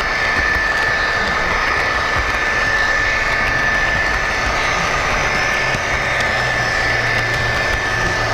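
Sound-equipped HO scale EMD SD60 model locomotive running, its DCC sound decoder playing a diesel engine sound through the model's speaker: a steady running rumble with a constant high whine.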